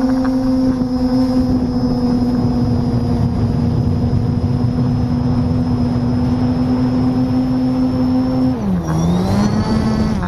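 Potensic D85 quadcopter's motors and propellers whining at a steady pitch over a rushing noise, picked up by the camera on the drone. About eight and a half seconds in, the pitch drops sharply and climbs back within about a second and a half as the motors slow and speed up again.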